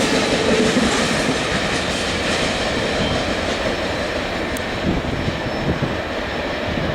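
Loaded coal train's freight cars rolling past, steel wheels running on the rail in a steady rumble, with a few faint knocks in the second half.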